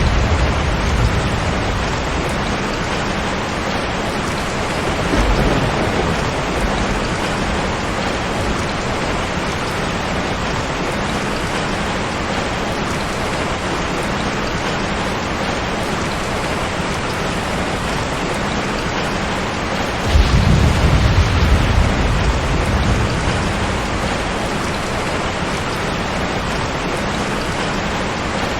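Steady heavy rain with rolls of thunder: a low rumble fading in the first second, a short one about five seconds in, and a longer, louder roll about twenty seconds in that dies away over a few seconds.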